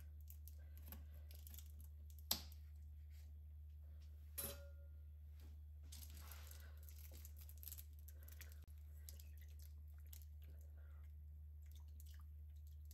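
Kitchen scissors snipping open the corner of a milk carton: one sharp snip about two seconds in, then a second lighter click and soft rustling as the carton is handled, over a faint low hum.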